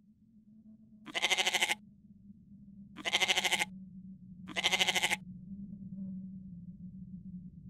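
An animal bleats three times, each call about half a second long with a fast quiver, spaced about a second and a half apart. Under the calls runs a steady low hum that grows louder.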